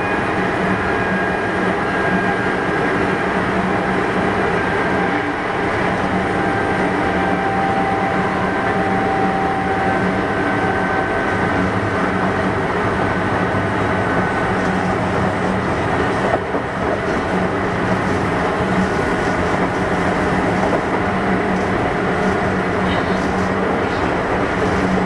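Kintetsu 6200-series electric commuter train running, heard from on board: a steady rumble of wheels on rail and running-gear noise with faint drifting tones. A single short knock comes about sixteen seconds in.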